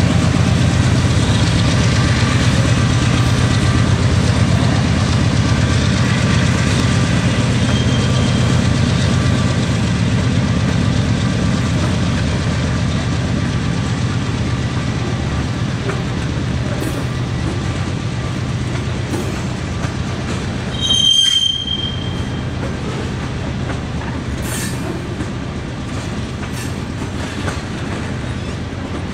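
Potash covered hopper cars of a freight train rolling past, with a steady rumble of wheels on rail that slowly fades. A brief, loud, high-pitched squeal about two-thirds of the way through.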